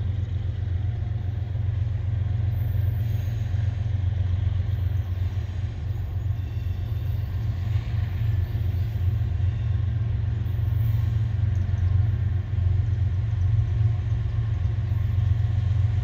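Steady low rumble of an approaching freight train's lead diesel locomotive, a GE ES44DC, growing slightly louder toward the end.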